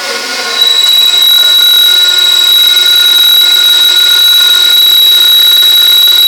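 Rotary coordinate drilling machine at work: a loud, steady high-pitched tone comes on about half a second in and holds without wavering over the machine's running noise.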